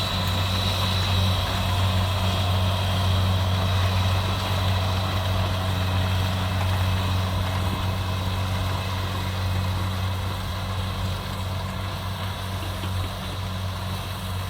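Kubota DC70 combine harvester running steadily while harvesting rice: a constant low diesel engine hum with faint steady higher whining tones over it, easing off slightly near the end.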